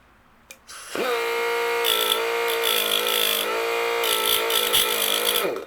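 A small high-speed grinder is switched on and spins up to a steady whine. It grinds down the dimpled, raised edges on a chainsaw chain's drive links in two spells of contact, the pitch sagging slightly under load, then spins down just before the end.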